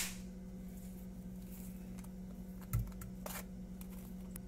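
Boiled potato pieces pushed with a steel spoon from a bowl into batter in a pan: a dull knock a little under three seconds in, then a short soft swish, over a steady low hum.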